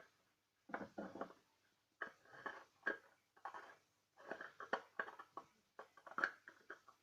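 Slime being squeezed and poked by hand: irregular clusters of wet clicks and small pops, with short pauses between them.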